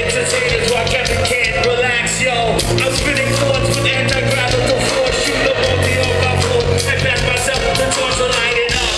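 A live band playing loud music, with a steady drumbeat and sustained bass notes.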